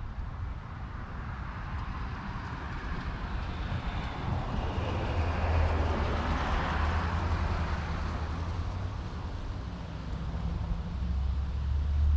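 Vehicle noise passing by: a broad rumble that swells to its loudest about six or seven seconds in and then fades, over a steady low hum.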